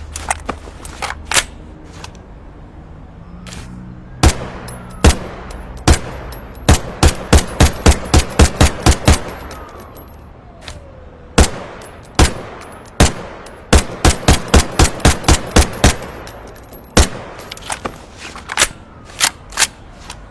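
Ruger 10/22 semi-automatic .22 rimfire rifle firing. Scattered single shots are broken by two quick strings of about nine shots each, at roughly three to four shots a second.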